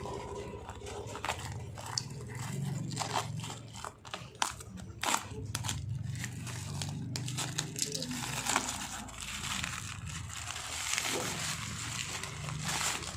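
Parcel packaging being handled and opened by hand, with irregular crinkling and crackling over a steady low hum.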